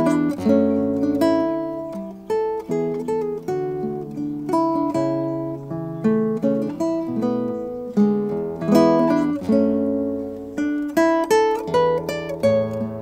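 Solo nylon-string classical guitar played fingerstyle: a melodic tune of plucked notes over bass notes, each note ringing and dying away.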